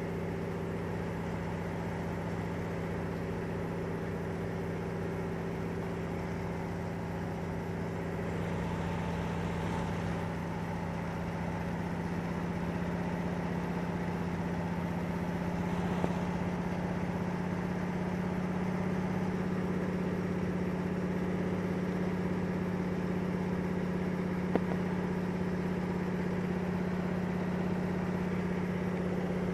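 De Havilland DHC-2 Beaver floatplane's engine and propeller at climb power, a steady drone heard inside the cabin. It gets a little louder about eight seconds in, with a couple of brief clicks later on.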